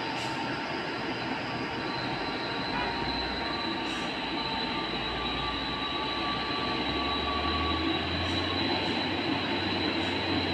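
Heavy trucks' diesel engines running as they take a steep hairpin bend, with a steady high whine over the rumble; the low engine drone grows louder in the last few seconds as a truck comes closer.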